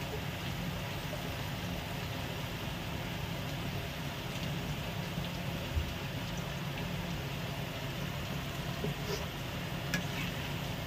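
Masala sizzling softly in a non-stick pan while fresh cream is poured in and spread with a spatula, over a steady low hum. A few faint clicks of the spatula near the end.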